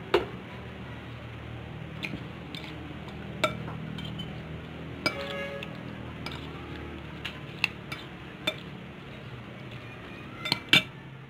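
Metal spoon clinking against a ceramic bowl while seasoned raw fish pieces are stirred: irregular single clinks with a short ring, the loudest two close together near the end.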